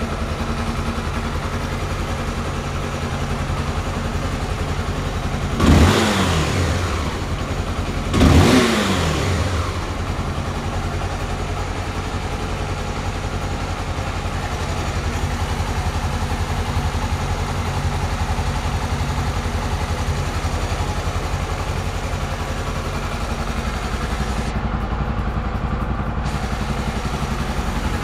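Honda XRE 300's single-cylinder four-stroke engine idling steadily, with two quick throttle blips about six and eight seconds in, each revving up and falling back to idle.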